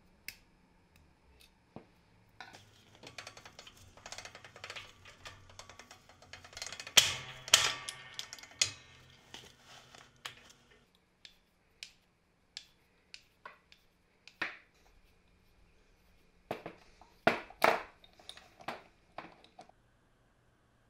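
Small steel parts of a drill press spindle and pulley assembly clicking and clinking as they are taken apart by hand. A pair of pliers snaps a circlip, the bearings and hub rattle and knock, and the loudest knocks come about seven seconds in. A cluster of sharp clinks near the end comes as the metal parts are set down on a wooden bench.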